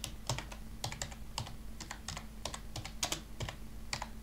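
Typing on a computer keyboard: irregular keystroke clicks, about three to four a second, over a faint steady low hum.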